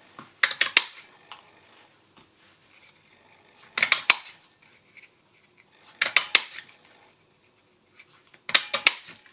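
Stampin' Up! Trucking Along Builder Punch, a hand-pressed plastic craft punch, punching wheel circles out of black cardstock four times. Each punch is a short cluster of sharp clicks as the punch is pressed through the card, with about two seconds between punches.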